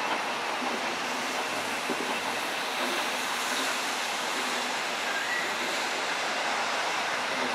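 Steam-hauled goods train moving away along the line, heard as a steady, even rush of distant running noise.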